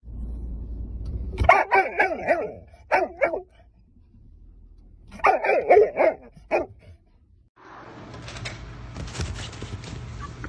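Dog barking inside a car, in several short bursts of excited barks. Near the end, a steady rustling hiss takes over.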